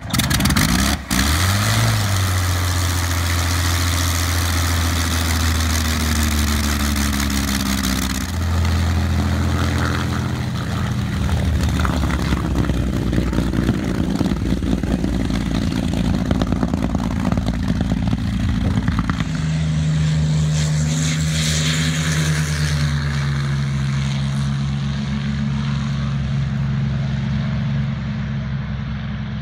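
Messerschmitt Bf 109's Daimler-Benz DB 605 inverted V12 aero engine catching and picking up speed about a second in, then running loudly at varying speeds. The note changes abruptly a couple of times.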